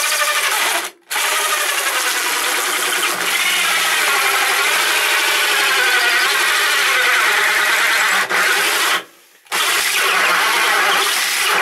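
Makita 10.8-volt cordless drill with a hole saw cutting into a camper van's wall panel. The motor's pitch wavers as it bogs under load, and the drill stops briefly about a second in and again near the end. The drill is straining because it is underpowered for this cut and heating up.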